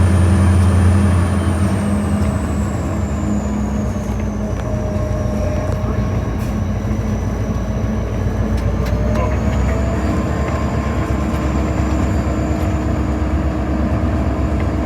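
EMD SD40-2 locomotive's turbocharged 16-cylinder diesel running, heard inside the cab. Its low drone eases about a second and a half in, and a high whine sinks and then rises a little.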